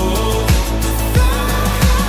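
Background music: a pop song with a deep, steady bass and a regular kick-drum beat.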